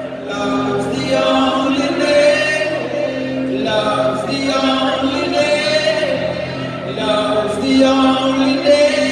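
Rock band playing a slow song live, with sung vocals held over sustained guitar and keyboard notes, heard through a phone-style recording in a large hall.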